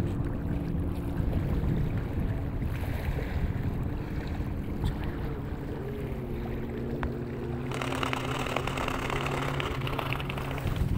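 A low, steady engine hum with wind noise on the microphone; about eight seconds in, a brighter rushing hiss joins it.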